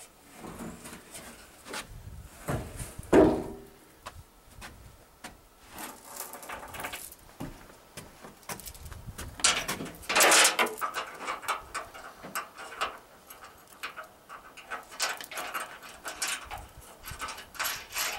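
Hands working an old Chevy pickup's steel tailgate and its hanging chain: irregular metal clinks, knocks and chain rattles, with a sharp knock about three seconds in and a longer, louder clatter about ten seconds in.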